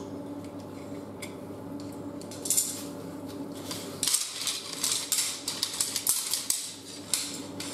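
Aluminium camp-cot frame poles clinking and knocking together as they are handled and slotted into one another. There are light metallic clicks at first, then a quick run of them from about halfway through.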